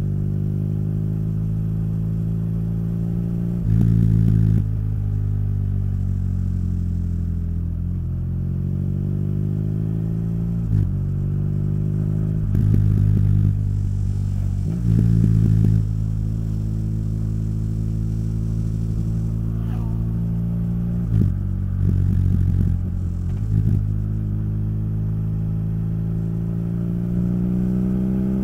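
BMW R nineT boxer-twin motorcycle engine and Akrapovic exhaust running on the move. The engine note slowly falls and rises as the bike slows and speeds up, with several short louder spells.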